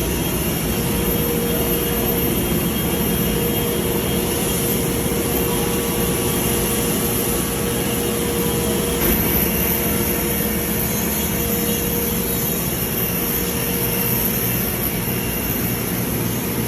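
CNC router spindle running at speed as it cuts thin 0.7 mm mica laminate sheet: a loud, steady rushing noise with a high whine over it.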